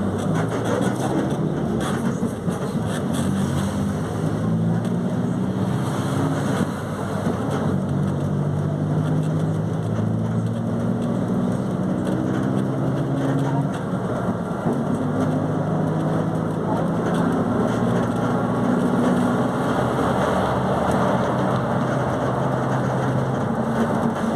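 Diesel engine of a Volkswagen 17.230 OD city bus pulling under load. Its note climbs slowly and then drops back several times, as the bus accelerates through its gears.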